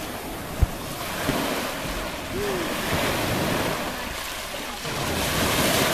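Sea surf breaking and washing on the shore, swelling twice, with one brief low thump about half a second in.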